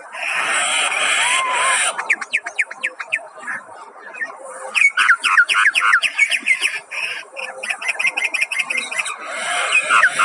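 Myna birds calling: harsh, grating squawks for the first two seconds and again near the end, with fast runs of short, downward-sliding chattering notes in between.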